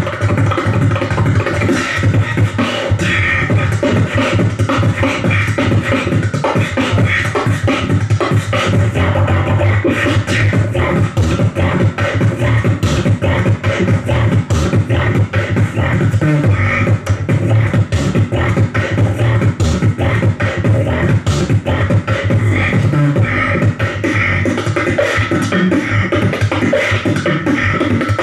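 Live human beatboxing into a handheld microphone through the stage sound system: an unbroken run of fast, dense mouth-made drum sounds over a steady low bass.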